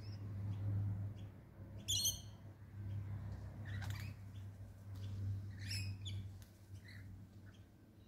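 Birds calling in short, high chirps and screeches, loudest about two seconds in and again around four and six seconds, over a steady low hum.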